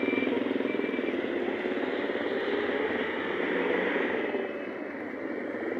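A motorcycle engine passing close by over steady road traffic noise, which gets quieter after about four and a half seconds.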